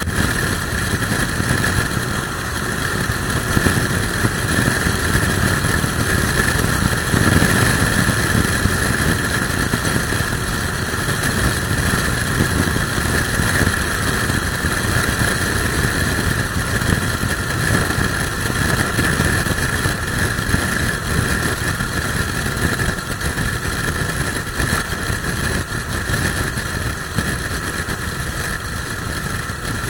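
Suzuki motorcycle being ridden, its engine running steadily under a heavy, even rush of wind noise on the microphone, with gusty buffeting in the low end from a strong crosswind.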